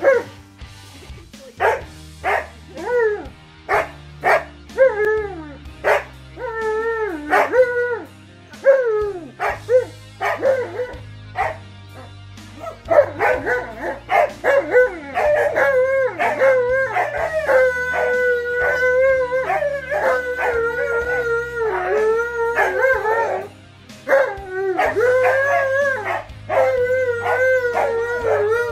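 A Siberian husky and an Alaskan malamute vocalizing: short woo-woo calls that bend up and down, about one a second, then from about halfway through long drawn-out howls that overlap.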